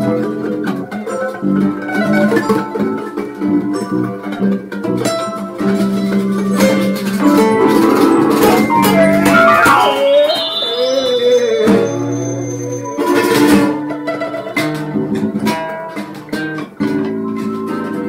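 Acoustic guitar playing an instrumental piece in plucked and strummed notes. Around the middle, a wavering, falling whistle-like tone sounds, followed by a brief noisy rattle, before the steady guitar notes return.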